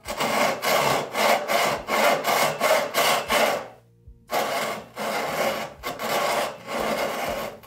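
Hand saw cutting into a wooden board in quick back-and-forth strokes, making a row of closely spaced relief cuts. A run of strokes, a short pause about four seconds in, then another run.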